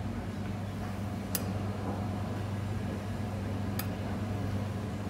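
Steady low hum of kitchen machinery, with two light metallic clicks, about a second and a half in and again near four seconds, as tweezers pick herb leaves from a stainless-steel bowl.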